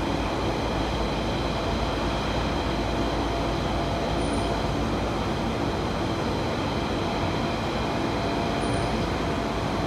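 Steady running noise of a London Underground Central Line 1992 Tube Stock train, heard from inside the carriage: wheels on rail and traction equipment, with a steady whine running through it.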